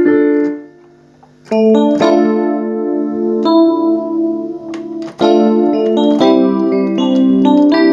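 Chords played on an S-Engine sound module from a MIDI controller keyboard: one short chord, a pause of about a second, then a run of held chords that change every second or so.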